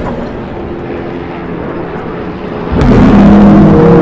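Helicopter engines and rotors droning as a group of helicopters flies overhead. The sound jumps much louder near the end.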